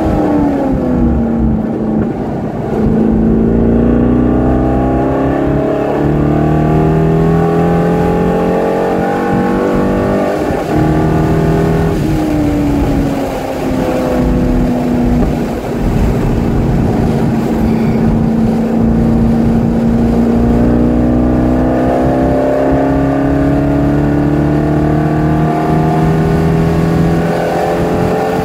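Corvette C5's 5.7-litre V8 heard from inside the cabin on a racetrack lap. The engine note falls in the first couple of seconds, holds and climbs, eases down a little before halfway, then rises steadily again in the last third as the car accelerates.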